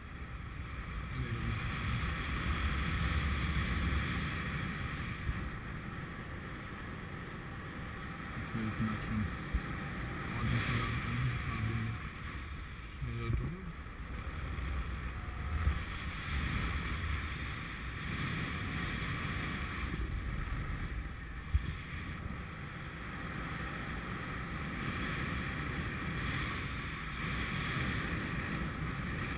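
Wind rushing over a GoPro action camera's microphone in paragliding flight, a steady noisy rush that swells and eases, with a few brief knocks.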